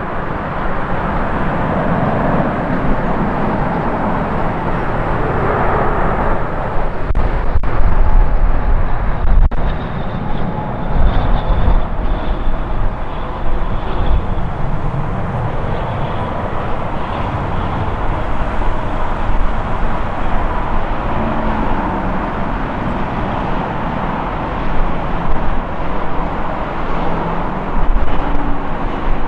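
Jet airliner engines running at an airport, a steady roar with a faint high whine for a few seconds near the middle. Irregular low rumbling from wind on the microphone runs under it.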